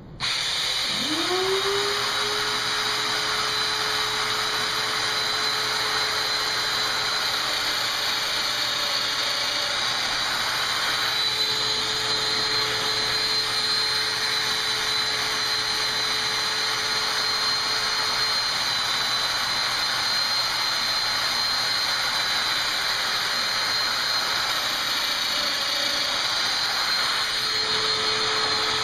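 Festool Domino DF 500 joiner switched on. Its motor spins up about a second in and then runs steadily with a constant hiss while it cuts 5x30 mortises in small divider pieces.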